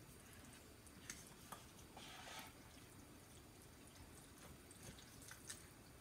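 Faint wet stirring of chunky raw chili mixture with a silicone spatula in a plastic pressure-cooker pot, with a few light taps of the spatula.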